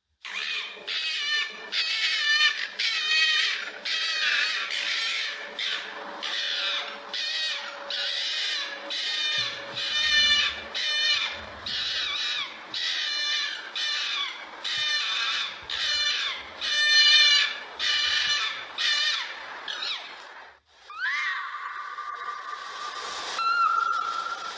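A fox barking over and over, about one high-pitched, wavering yap a second. After a short break near the end it gives a steadier, drawn-out whining call.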